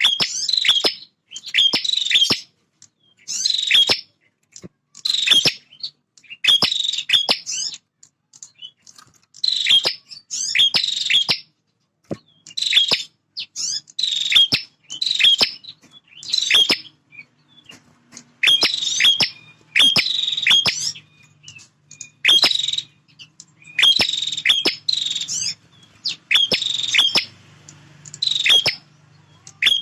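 Male prenjak (prinia) singing excitedly: loud, high-pitched, rapid chirping phrases repeated about once every second or so with short gaps. It is the territorial song played to provoke rival prenjak into singing.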